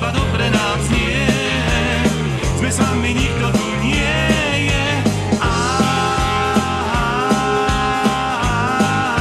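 Instrumental break of a rock-style song, with a steady bass line and drum beat. A held, wavering lead melody comes in about five seconds in.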